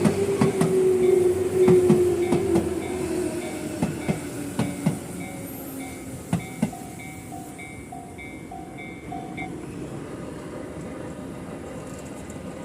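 Electric train running on rails, its motor whine falling in pitch and wheels clicking over rail joints as the sound fades over the first few seconds. A repeating electronic beep sounds for about four seconds in the middle.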